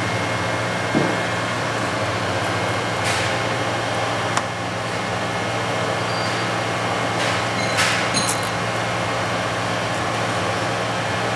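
Pastaline Kali dough rounder running with a steady hum, broken by a few brief knocks and swishes.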